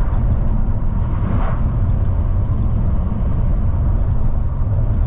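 Mercedes-AMG E63 (W212) twin-turbo V8 running steadily under way, its low exhaust drone heard inside the cabin through a slightly lowered side window, mixed with road and wind noise.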